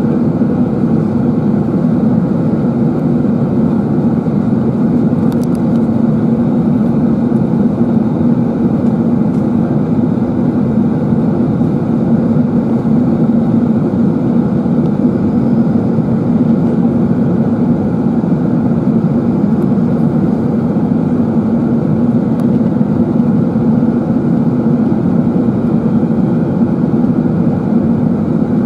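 Steady cabin noise inside an Airbus A380-841 in descent: engine and airflow noise through the window seat beside the wing, an even low hum with no change in pitch or level.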